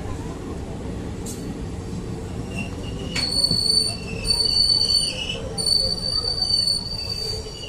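Passenger train running with a steady rumble, then wheels squealing against the rails: a high-pitched squeal starts about three seconds in and comes and goes in stretches.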